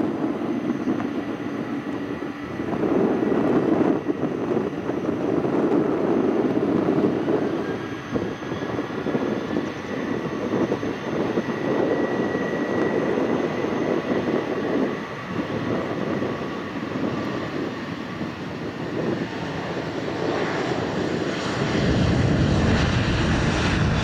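Boeing 747-400 freighter's four turbofan engines running at taxi power: a steady rushing rumble with a faint high whine. Near the end it grows louder and deeper as the aircraft turns its tail and engine exhausts toward the listener.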